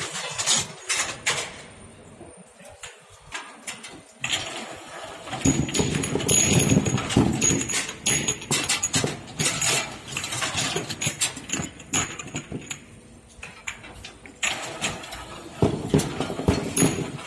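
Bottle washing machine running, with rapid clicks and clinks of small glass bottles being handled. A dense hiss of water and compressed-air jets starts about five seconds in, lasts some six seconds, and comes again near the end.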